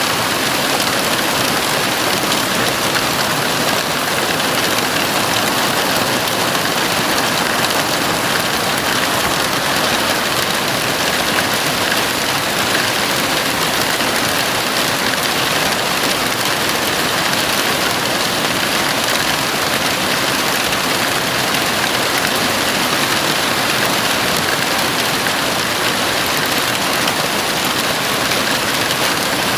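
Heavy rain falling steadily on a house roof, a dense even hiss with no breaks.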